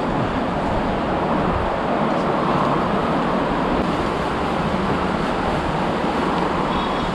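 Steady rushing ambient noise at an even level, with no distinct events.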